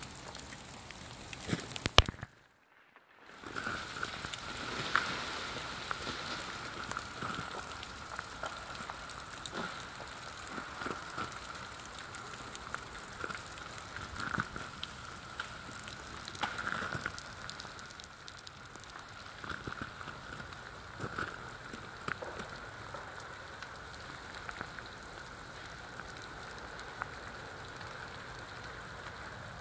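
Freezing rain falling steadily, a hiss dotted with many small ticks and occasional sharper clicks as it strikes ice-coated trees and crusted snow. The sound drops out for about a second near the start.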